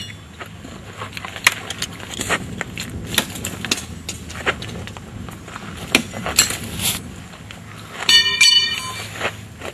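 Scattered clicks, knocks and rustles of gear being handled, with a brief bright metallic ringing about eight seconds in.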